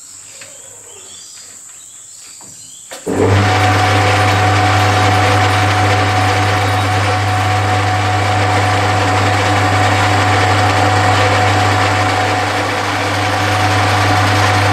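Metal lathe switched on about three seconds in, its motor and gearing then running at a steady speed with a strong low hum, turning a forged crankshaft between centres.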